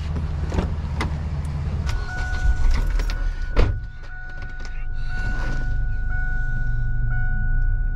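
Knocks and rustling from the camera being handled and covered, over a low rumble. From about two seconds in, a steady high-pitched electronic tone sounds without a break.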